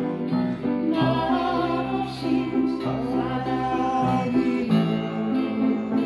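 Upright piano played with both hands, a melody over chords, as a slow song played by ear.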